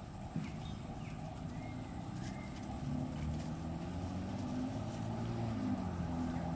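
A motor engine running steadily, its low hum growing louder from about three seconds in and shifting pitch near the end, with a few faint high chirps early on.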